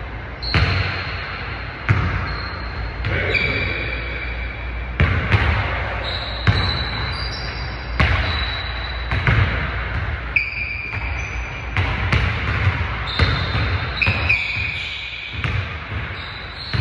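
Basketballs bouncing on a hardwood gym floor and off the rim during shooting practice, a sharp thud about every second, with short high sneaker squeaks in between, echoing in a large gym.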